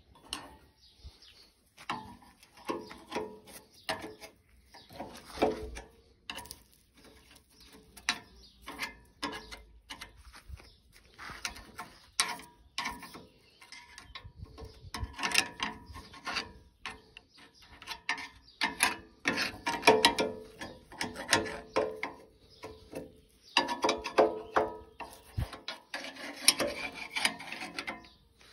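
Irregular metallic clinks, scrapes and rattles of hand tools and parts being worked on a hay baler's plunger. The sound is sparse at first, with busier stretches of rapid clicking and scraping in the second half.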